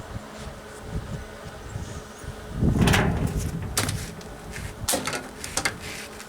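Steady low hum with a loud clatter about three seconds in, followed by a few short sharp knocks.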